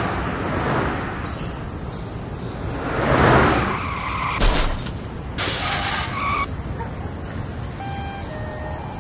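Car sound effects: a car swelling past about three seconds in, a sharp knock soon after, then tyres skidding for about a second. Near the end a simple tune of short separate notes begins.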